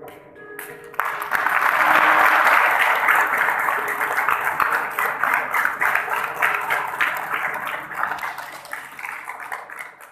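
Audience applauding. It starts suddenly about a second in and slowly dies away toward the end. The last notes of the backing music fade out just before it.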